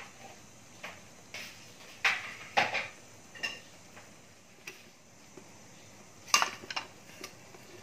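Kitchen dishes and utensils clinking and knocking as a plate and a glass bowl are handled: a string of separate light knocks a second or so apart, with the loudest cluster near the end.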